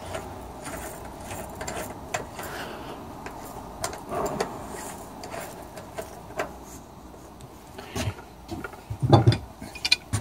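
Irregular mechanical clicks, rattles and knocks of a bicycle wheel and its parts being handled, with a few heavier thumps near the end.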